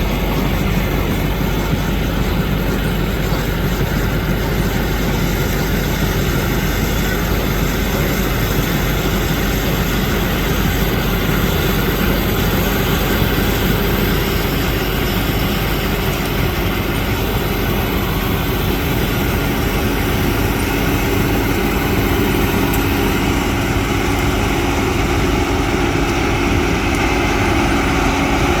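John Deere 9500 combine running steadily while harvesting oats: a continuous engine and machinery drone, with a steady hum that grows a little stronger in the last third.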